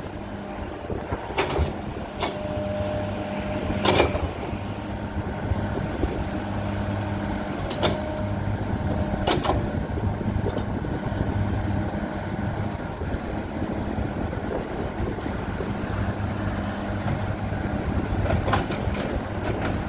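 Kobelco SK210LC hydraulic excavator's diesel engine running steadily as the boom, stick and bucket are worked, with about half a dozen sharp metallic clanks and a couple of short whines from the hydraulics.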